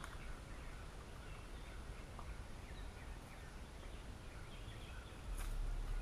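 Quiet outdoor ambience with faint, scattered bird calls. About five seconds in there is a single knock, and a low rumble rises after it.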